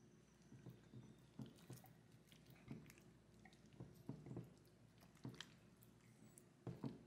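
Faint wet squelches of gloved hands squeezing and turning pieces of marinated picanha in a glass dish, a string of short, irregular squishes with the sharpest pair near the end.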